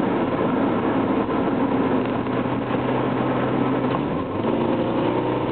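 Engine and road noise of a 1997 Subaru Legacy's flat-four, heard from inside the cabin while driving. A steady low hum changes to a higher note with several tones about four seconds in.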